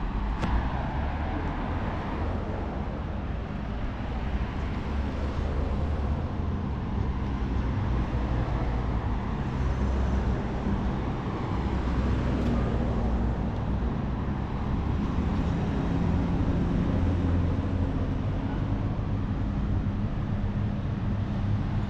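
City street traffic: car and bus engines running and passing in a steady low rumble, with a sharp click about half a second in.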